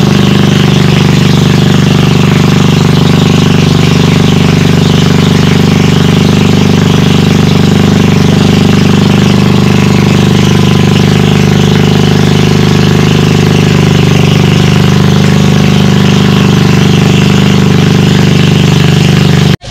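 An engine running loud and steady at a constant speed, with no change in pitch, cutting off abruptly near the end.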